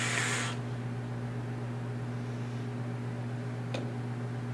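A short hiss of a vape mod being drawn on, about half a second, near the start, then a steady low hum under faint noise, with one small click near the end.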